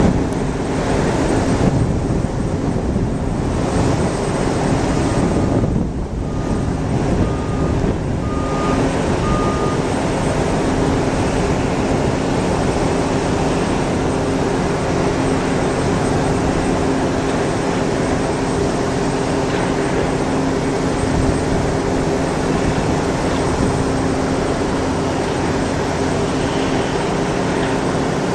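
Boeing 767-300 freighter's jet engines on final approach: a steady rumble with a low drone. About five seconds in, a reversing alarm beeps five times, roughly once a second.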